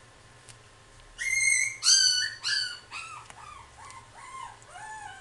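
Shiba Inu puppy whining in a run of high-pitched yelps starting about a second in. The first three are the loudest, followed by a string of shorter, softer whimpers that drift lower in pitch.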